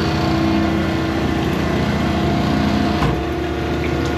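Steady drone of running barn machinery, a motor-driven machine humming evenly, with a single sharp click about three seconds in.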